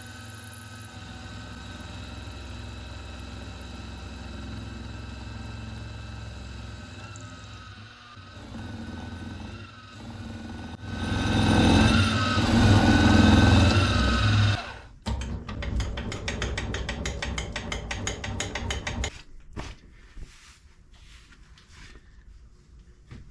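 Milling machine spindle running with an end mill cutting into an aluminium block: a steady motor hum, louder for a few seconds about halfway through while the cutter bites. It cuts off about two-thirds of the way in, followed by a fast rattle of ticks and then quieter handling sounds.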